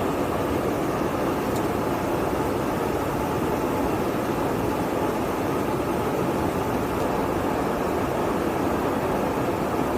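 Steady in-flight roar of a jet aircraft, heard as an even rushing noise that holds level without change.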